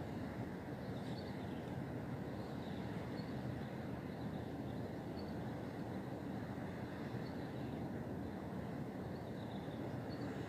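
Outdoor ambience: a steady low rumble with faint, short, high bird chirps every two seconds or so.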